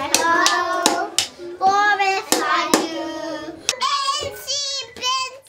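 Hand claps mixed with young children's voices singing, the claps coming unevenly for about three seconds. Then a child's high, wavering singing voice takes over.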